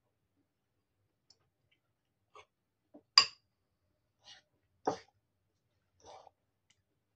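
Scattered short clinks and scrapes of a metal fork against a ceramic bowl, with soft mouth sounds of eating. The sharpest clink comes about three seconds in, and another strong one comes nearly two seconds later.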